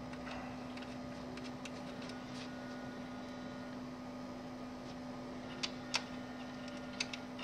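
Steady low electrical hum, with a few faint clicks later on as small screws are set back into their holes in the television's metal chassis.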